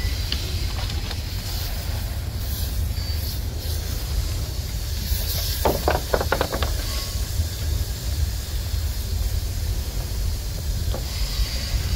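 Garden hose spray nozzle hissing as it sprays a fine mist, over a steady low rumble. A quick run of short sharp sounds comes about six seconds in.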